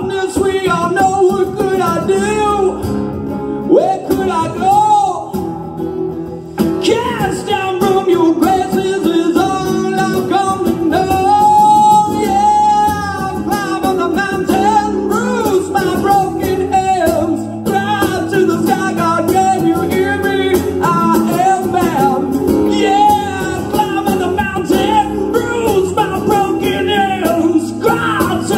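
Male singer singing a rock song live into a microphone over guitar accompaniment in a stripped-down unplugged arrangement, his held notes wavering with vibrato.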